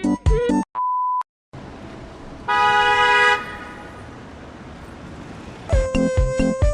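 A car horn honks once for about a second over steady traffic-like street noise. A short electronic beep and bits of a plucky music track come just before it, and the music returns near the end.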